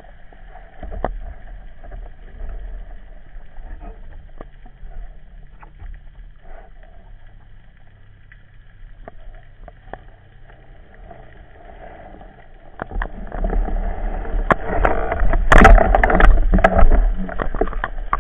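Underwater handling noise of a spearfishing rig: a low, quiet water background with a few faint clicks, then from about 13 seconds in a loud rumble full of knocks and scrapes as the speared fish is pulled in and grabbed by hand on the spear shaft.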